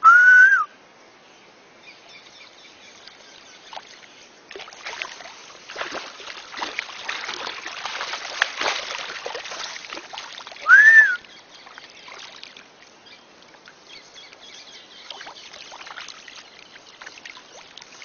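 Shallow water splashing and churning as a caiman thrashes at the river's edge, building from about four seconds in and easing off after about twelve. Two short, loud whistled calls that rise and fall, one at the very start and one about eleven seconds in, are the loudest sounds.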